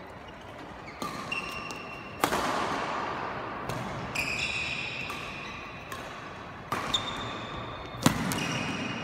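Badminton rally: rackets striking the shuttlecock in a string of sharp hits that echo around a large hall, the loudest near the end, with short squeaks of court shoes on the floor between the hits.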